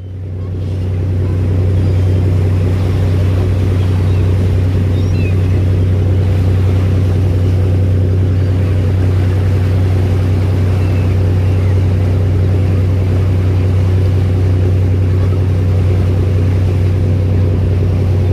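Fishing boat's engine running with a steady low drone, fading in over the first second or two.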